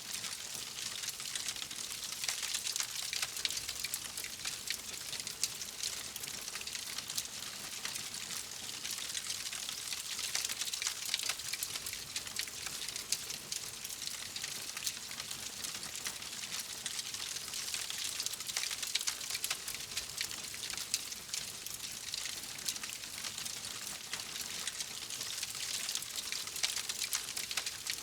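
Wood fire crackling in a fireplace: a steady hiss full of small, rapid pops and snaps, with a few sharper cracks standing out.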